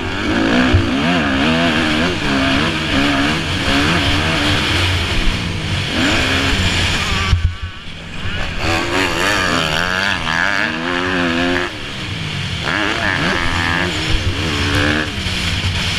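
Dirt bike engine heard on board, its revs rising and falling again and again as the rider works the throttle and gears around a motocross track. Rushing noise and knocks from the rough track run under it, and the engine drops off briefly a little past halfway before revving up again.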